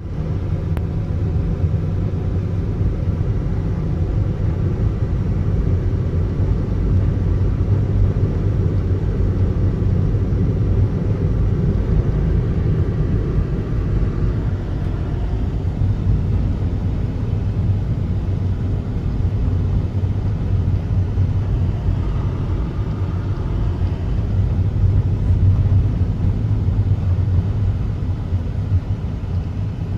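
Steady, loud, low rumble of a moving car: engine and road drone as heard from inside the vehicle.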